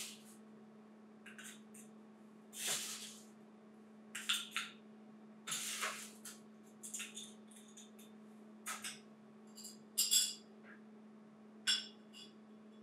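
Bar spoon stirring ice in a cocktail glass: scattered clinks and short ice rattles, with one ringing glass clink about ten seconds in. A steady low hum runs underneath.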